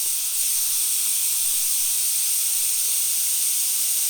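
Pressurised air hissing steadily out of a punctured tire through the hole being reamed for a plug, a high even hiss with no change in strength.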